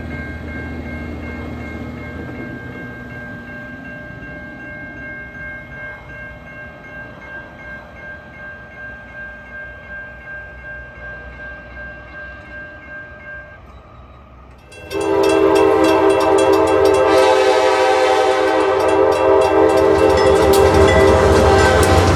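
Railroad crossing bell ringing over the low rumble of passing rail equipment. About 15 seconds in, a diesel locomotive's multi-note horn starts suddenly, loud, and sounds on through the end.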